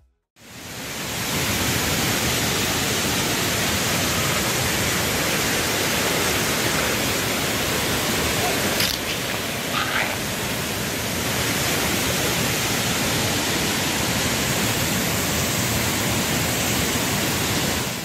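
Waterfall pouring down a rock face, a steady loud rushing noise.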